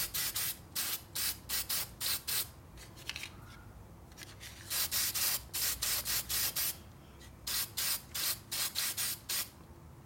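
Aerosol can of aluminum spray paint sprayed in quick short spurts, about three or four a second, in three runs with brief pauses between, laying a sealer coat on a copper head gasket.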